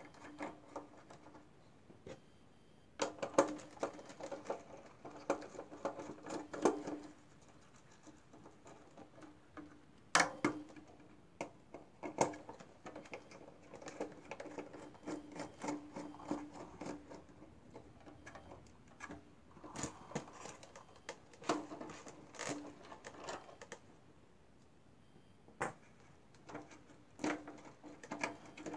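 Irregular clicks, taps and scrapes of hands and a small tool working on a servo and its wire pushrods in a model airplane's wooden servo tray, coming in short clusters.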